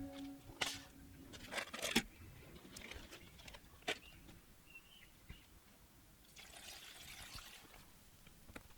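Faint clicks and knocks of small keyboard parts being handled, then a short stretch of water trickling or splashing about six seconds in, as parts are washed.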